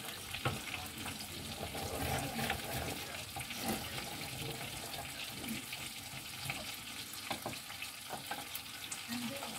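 Food sizzling in a frying pan, with occasional taps and scrapes of a wooden utensil against the pan.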